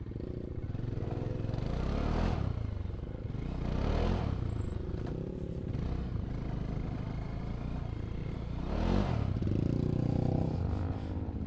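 Motorcycle engine running close by as the bike pulls away from a stop and rides slowly over a rough dirt track. The engine note swells briefly a few times as the throttle is opened.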